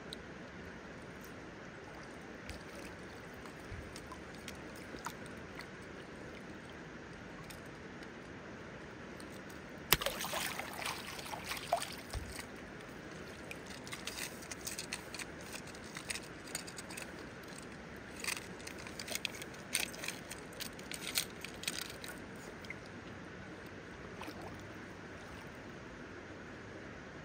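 Steady flow of a shallow river. About ten seconds in, splashing starts, followed by water pouring and dripping off a lifted landing net, with scattered sharp splashes and clinks until a few seconds before the end.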